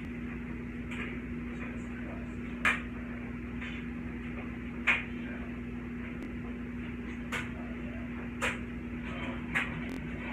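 Steady low electrical hum with scattered sharp knocks and clicks, the loudest about 2.7 and 4.9 seconds in, with others near 8.5 and 9.6 seconds.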